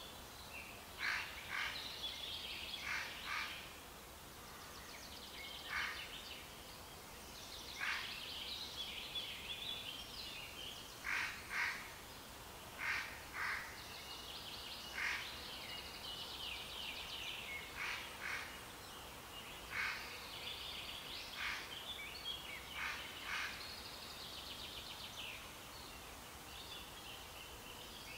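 Wild songbirds singing: short sharp chirps every second or two, mixed with faster trilling phrases, over a faint steady outdoor hiss.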